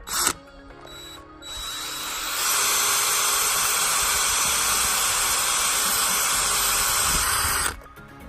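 18-volt cordless drill running with its bit grinding into a phone, starting about a second and a half in, building up to a steady loud grind, then stopping abruptly near the end.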